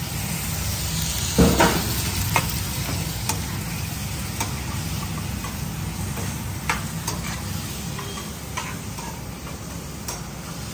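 Vegetables and mutton frying in a pan on a gas stove, sizzling while a metal spoon stirs and clinks against the pan every second or so. About a second and a half in comes a louder splash and burst of sizzle as the boiled mutton with its cooking water is tipped in from a steel bowl.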